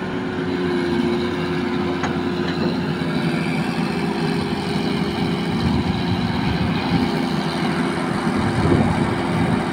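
Hitachi Zaxis 210 hydraulic excavator's diesel engine running steadily with a constant hum.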